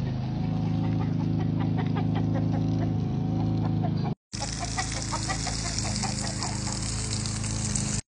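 Chickens clucking over a steady low hum. After a short break about four seconds in, a garden hose's spray hisses onto the soil along with the clucking.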